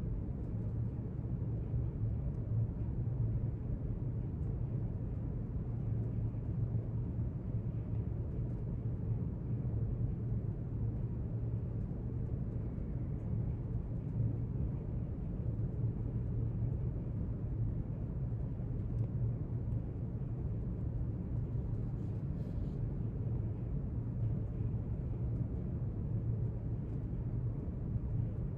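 Steady low rumble of library room ambience, even and unbroken, with a couple of faint ticks about 22 seconds in.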